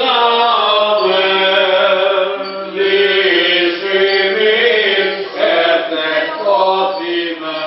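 Greek Orthodox Byzantine chant: a voice sings a melismatic line that glides between notes over a steady low held drone note (the ison).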